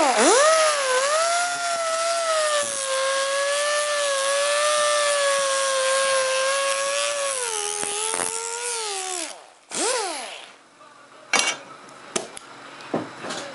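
Small high-speed rotary grinder grinding steel sheet metal, prepping the weld edges of a patch panel. Its whine rises as it spins up, holds steady with a grinding hiss for about nine seconds, then winds down, followed by one brief rev and spin-down.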